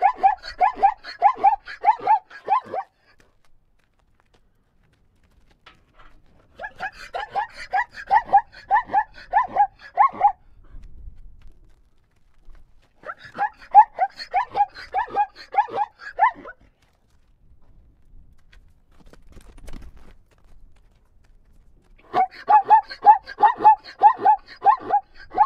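Zebra calling in bouts of quick repeated high calls, about three a second. One bout ends about three seconds in, and three more of three to four seconds each follow after short pauses.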